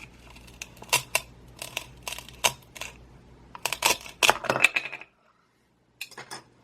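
Sharp clicks and knocks of a plastic toy knife and a velcro toy potato on a toy cutting board as the potato is cut apart at its velcro join. The clicks come thickest about two thirds in, then stop for about a second before a few more.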